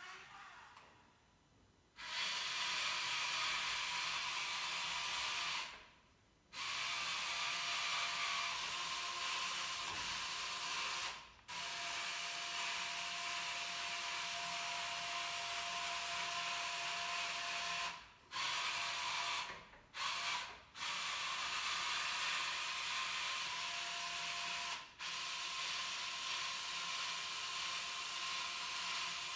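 The motors and wheels of a home-built humanoid robot's wheeled base running on a tiled floor: a steady whine over a hiss, starting about two seconds in and running in stretches of a few seconds, stopping and restarting about six times.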